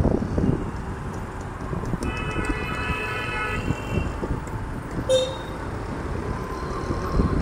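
Street traffic heard from a moving vehicle, with low wind rumble on the microphone; a vehicle horn honks once, about two seconds in, lasting under two seconds.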